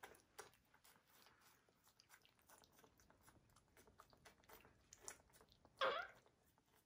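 Faint wet smacking and sucking of capuchin monkeys drinking yogurt from squeeze pouches, with one short vocal sound about six seconds in.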